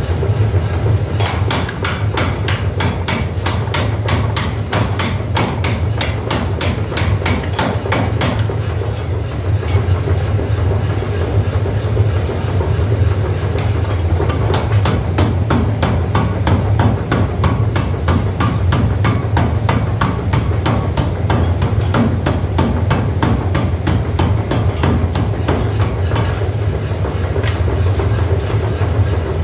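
Heavy forging hammer pounding a steel rod in rapid, regular blows, several a second, over a steady low machine hum.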